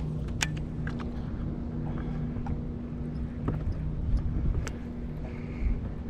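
A boat's motor humming steadily under low rumbling noise, with a few sharp clicks, the strongest about half a second in and just before the five-second mark.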